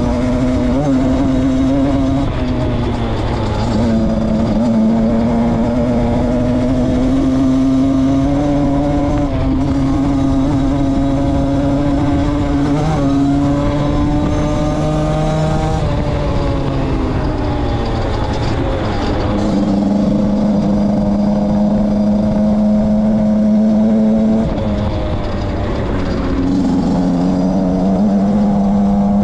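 Beta RR 50cc two-stroke engine running while the bike is ridden, its note climbing slowly with the throttle, dropping back about halfway through, holding lower for several seconds, then picking up again near the end.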